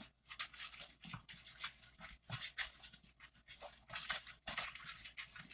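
Stirring wet and dry cookie-dough ingredients in a bowl: a run of short, irregular scraping strokes as the liquid is worked into the powder.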